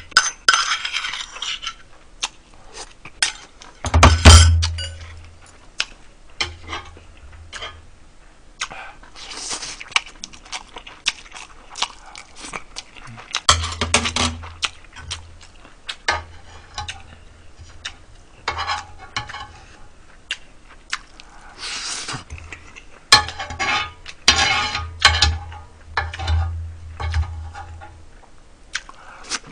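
Metal spoon clinking against a bowl and scraping across a griddle pan in many short, irregular clicks, with a few louder bursts of eating and handling noise.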